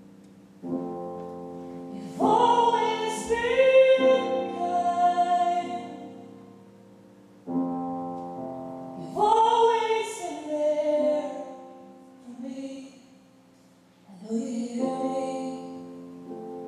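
A woman singing a slow song while accompanying herself on a digital keyboard with a piano sound. She sustains a chord about every seven seconds and lets it fade, singing phrases over it.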